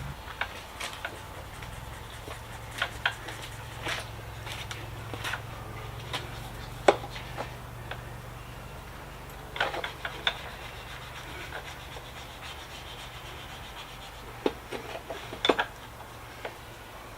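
Scattered clicks, knocks and rubbing as e-bike parts and hand tools are handled during assembly, a few sharper knocks standing out, over a steady low hum.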